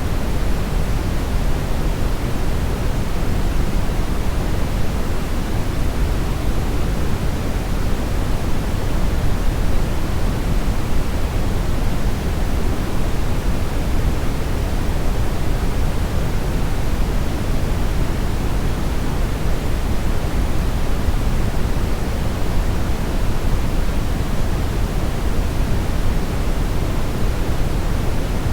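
Steady brownish noise: an even, unchanging rushing hiss, heaviest in the low end and rolling off toward the highs, with no distinct events.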